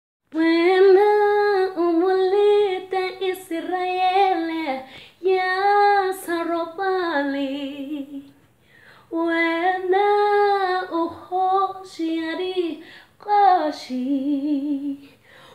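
A woman singing solo without accompaniment, in phrases of held notes with short pauses between them and a longer break about halfway through.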